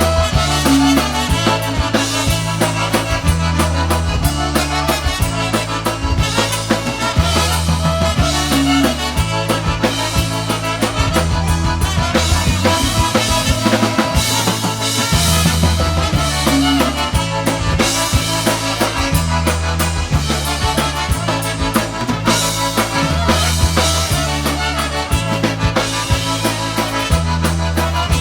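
Polka band playing an oberek, a fast Polish folk dance tune in triple time, with a steady bass line and drums under the melody.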